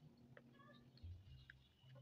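Near silence: faint, scattered chirps of small birds in the background over a low, intermittent rumble.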